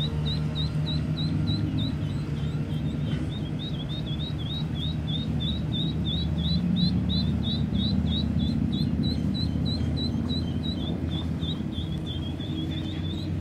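Mallard ducklings peeping steadily, a fast run of short high peeps at about four to five a second: the calls of ducklings separated from their mother. A low steady rumble sits underneath.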